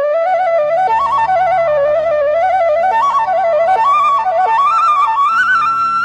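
Bansuri (Indian bamboo flute) playing a slow, ornamented melody with quick turns between notes. It climbs to a long held high note near the end, over a low steady drone.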